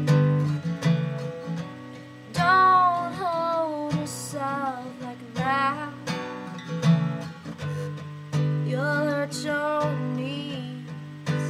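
Acoustic guitar strummed in steady chords, with a woman singing a few short phrases over it.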